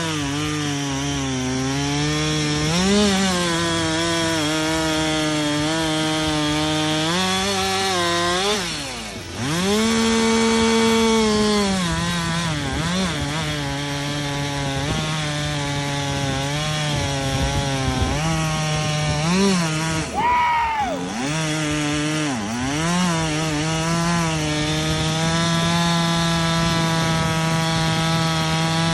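Two-stroke chainsaw with a freshly sharpened chain cutting through a log at full throttle, the engine pitch holding steady under load. About nine seconds in, and again around twenty seconds, the engine drops off and revs back up, running briefly free between cuts.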